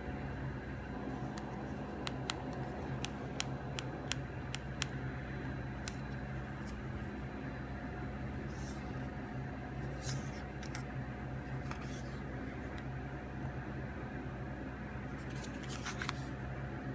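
A run of small sharp clicks, about eight in the first five seconds, then a few short scratchy rustles, over a steady low hum: keypad buttons of a Sony Ericsson K300i mobile phone being pressed and the phone handled, with no ringtone playing.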